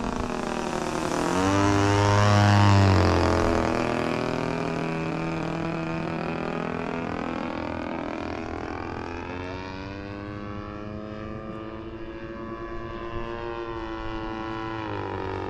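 The DLE 20RA 20cc single-cylinder two-stroke petrol engine of a radio-controlled Zero model plane in flight. It makes a close pass about two seconds in, getting loudest and dropping in pitch as it goes by. It then runs on more faintly as the plane flies off, its pitch rising and falling again near the end.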